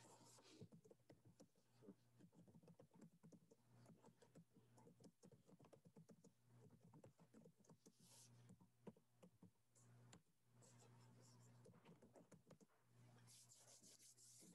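Faint typing on a computer keyboard: quick clicks in runs with short pauses, over a low steady hum.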